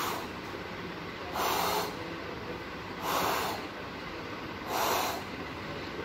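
Breathy 'shhh' whooshes made with the mouth, imitating the pansystolic murmur of mitral regurgitation: three half-second whooshes about one and a half seconds apart, each filling the whole of systole.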